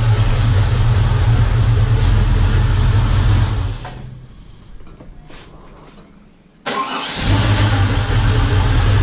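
A Holden Commodore's carburetted, cammed engine idling, then shut off a little under four seconds in. It is restarted nearly three seconds later, catching at once and settling back into a steady idle. The quick start shows the freshly set carburettor is working.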